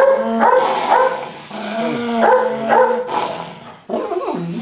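A small dog vocalizing in a string of about seven short, drawn-out calls that slide up and down in pitch, somewhere between whining and barking.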